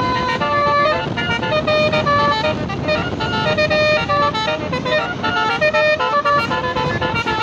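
Tour bus's Basuri telolet horn playing a fast melody, a quick run of stepped notes one after another, over the low rumble of the bus and street.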